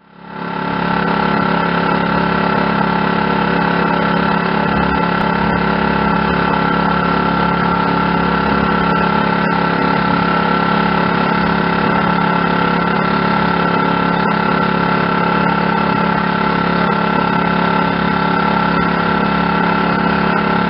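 Engine of a wooden passenger boat running steadily under way: a loud, even drone at a constant pitch, fading in over the first second.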